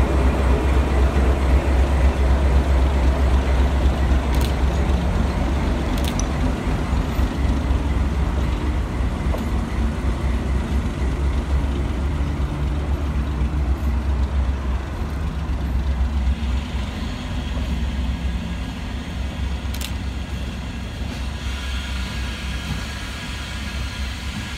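Vietnam Railways D12E diesel-electric locomotive running at low speed, its engine a deep steady rumble that slowly fades as it moves away. A few sharp clicks come from the wheels on the rails.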